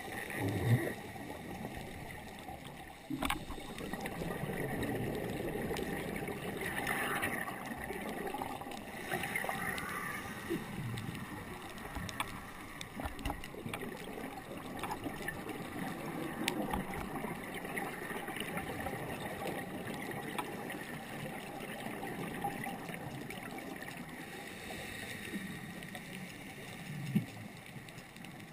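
Muffled underwater noise picked up through a camera housing, with a scuba diver's regulator breathing and exhaled bubbles gurgling in swells every few seconds. There are a couple of sharp knocks, one a few seconds in and one near the end.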